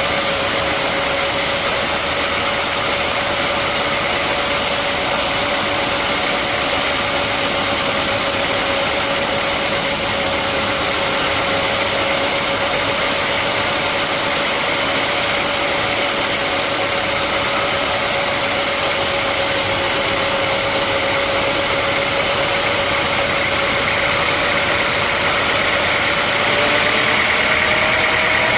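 Sawmill machinery running steadily with a constant whine and a noisy hum. The pitch rises slightly near the end.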